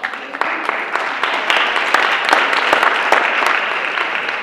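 Audience applauding, the clapping building over the first couple of seconds and starting to die down near the end.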